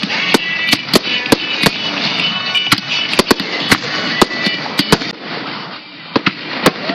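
Fireworks exploding overhead: rapid, loud bangs of aerial shells bursting, several a second, over a continuous crackle. The bangs thin out and the noise eases about five seconds in.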